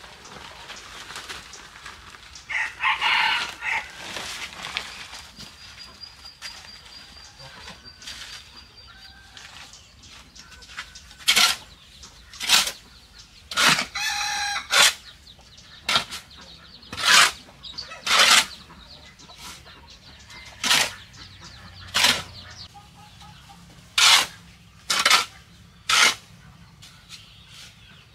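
A hoe scrapes dry sand and cement across a concrete floor in short, sharp strokes, about one a second, through the second half. A rooster crows about three seconds in and again around the middle.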